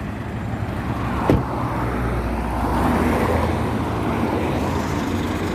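A car engine running steadily, with a single sharp click a little over a second in.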